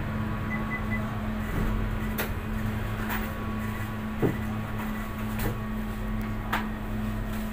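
A steady low machine hum, with a few short knocks and clinks from handling at a stainless-steel dough mixer bowl.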